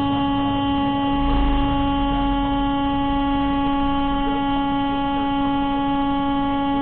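Truck air horn held down in one long, steady blast at a single low pitch, a warning at a car that has cut in close ahead.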